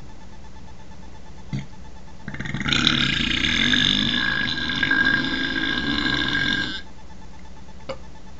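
A man's long, drawn-out belch, starting about two seconds in and lasting about four and a half seconds before cutting off.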